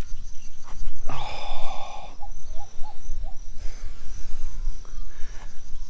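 A person breathing close to the microphone over a steady low rumble of wind and handling. A faint high steady insect drone runs underneath, and a few short chirps come about halfway through.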